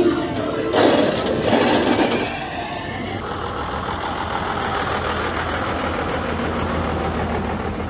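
A vehicle engine running steadily with a low hum, after some louder, uneven sounds in the first couple of seconds.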